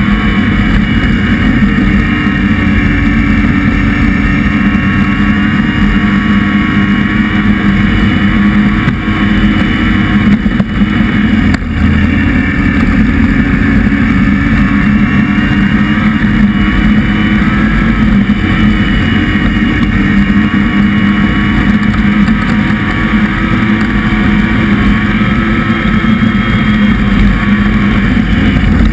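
A vehicle engine running steadily under way, loud and close, its pitch holding nearly level, with a brief dip in loudness about ten seconds in.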